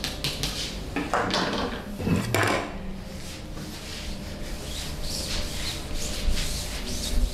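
Massage sounds: hands rubbing and working over skin and clothing, with two louder swishing rubs about one and two seconds in.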